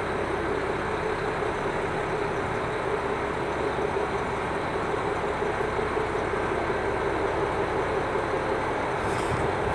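JR Hokkaido KiHa 261 series diesel express railcar running with a steady diesel drone as it draws slowly alongside the platform at arrival.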